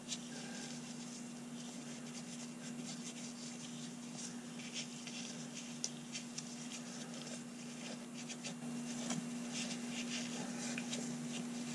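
Fine 0000 steel wool rubbed lightly over a small blued steel revolver part, a faint, irregular scratchy rustle, buffing off residue that dried on the surface during bluing. A steady low electrical hum runs underneath.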